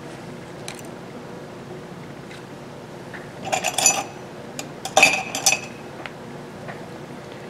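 Small metal hand tools clinking and clattering against each other in two short bursts about a second apart.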